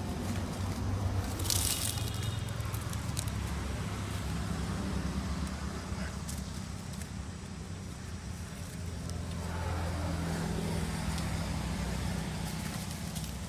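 Low, steady rumble of a motor vehicle engine running, swelling a little louder past the middle, with a few faint clicks and crackles over it.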